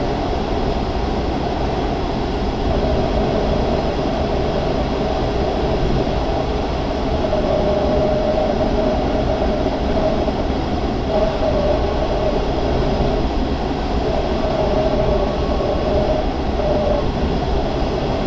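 Steady rush of airflow inside a Grob 103 glider's cockpit in flight, with a wavering whistle over a low rumble.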